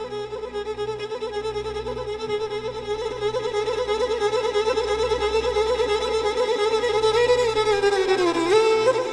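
A violin holding one long note with vibrato; near the end the pitch slides down and then back up.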